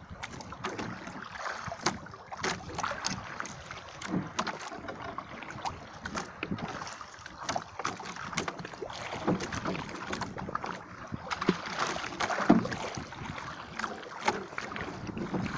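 Water sloshing and lapping against a small wooden outrigger boat, with irregular knocks and clatter from the hull and its bamboo poles as the fisherman shifts his weight and moves about in it.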